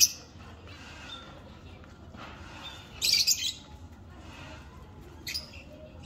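Small caged parrots squawking: shrill, sharp calls, one right at the start, a louder burst about three seconds in and a brief one near the end.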